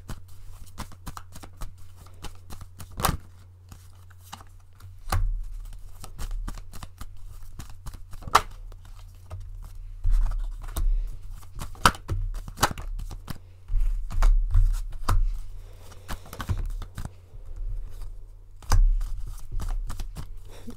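Tarot cards being handled on a table, with irregular clicks and snaps of card edges over a steady low hum.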